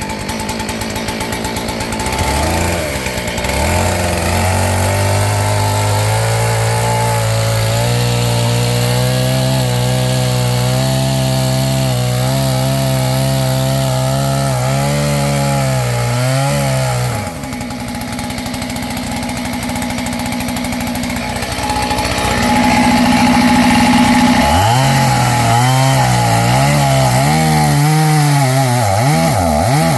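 Two-stroke clone chainsaw running at high revs while cutting wood. The engine note falls away about 17 seconds in, then comes back louder and wavering near the end; the owner thinks the saw needs tuning.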